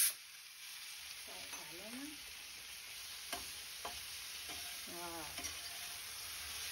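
Vegetables sizzling in hot oil in a frying pan, with a few sharp clicks of a metal spatula against the pan as they are stirred.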